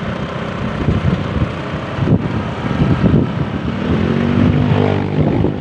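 Road vehicle engines running in traffic, one engine's note rising in pitch about four seconds in.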